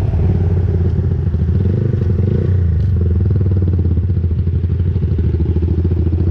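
Motorcycle engine running steadily at low revs, a rapid even pulsing beat with no revving up or down, heard from the bike's own onboard camera.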